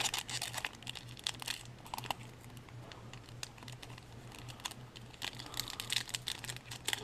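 Trading cards and foil pack wrappers being handled: scattered crinkles, rustles and light card clicks, busiest in the first two seconds and again near the end, over a faint steady low hum.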